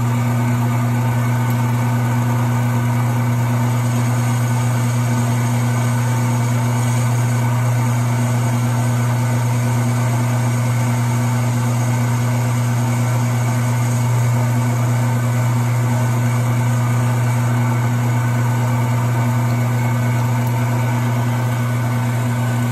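Small benchtop metal lathe running with its spindle turning, a steady, loud motor hum with a strong low tone, while it takes a light skim cut on round stock.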